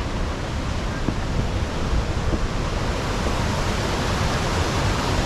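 Waterfall pouring: a steady, very loud rush of water with no breaks.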